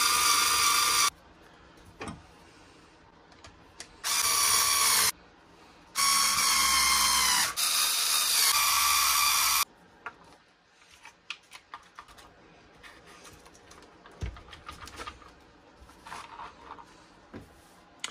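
Small cordless electric screwdriver whirring in three runs, the last about three and a half seconds long, driving screws into a plastic RC car chassis. After the last run come only soft clicks and taps of parts being handled.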